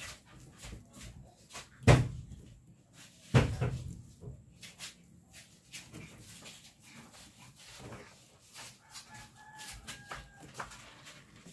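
Craft materials being handled on a plastic-covered table: soft rustling and light taps as a sheet of sinamay fibre is laid over burlap mesh and smoothed flat, with two loud knocks about two and three and a half seconds in. A faint drawn-out animal call sounds in the background near the end.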